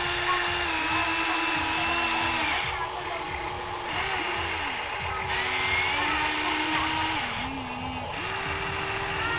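Electric motors of a Huina RC excavator whining as it works the boom, arm and bucket, the pitch stepping up and down every second or so as the functions start and stop under load.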